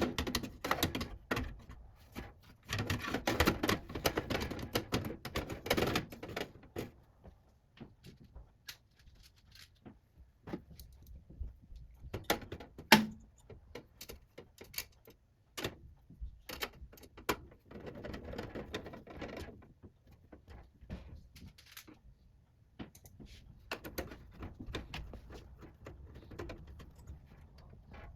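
Computer parts being handled during PC assembly: scattered clicks and taps of plastic and metal, with stretches of rustling about three to six seconds in, again a little after halfway, and near the end. One louder click stands out about halfway through.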